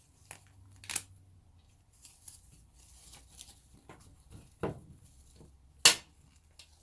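Handling of the impact wrench's belt clip and packaging: a few sharp clicks and knocks, the loudest about six seconds in, with faint rustling between.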